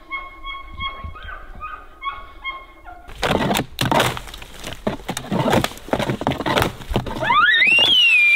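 Faint, high calls of distant bull elk, then a run of loud, rough knocks and scrapes. Near the end a hunter blows an elk bugle tube: a bull-elk bugle that glides up in pitch to a high whistle and holds it.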